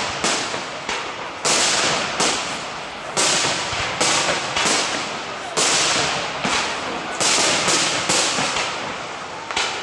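Aerial firework shells bursting in quick succession, one or two sharp bangs a second, each trailing off in a hiss that fades before the next.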